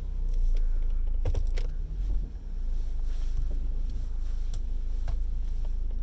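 Car running, a steady low rumble heard inside the cabin, with a few light clicks and metallic jingles like keys: a cluster about a second in and single ones later.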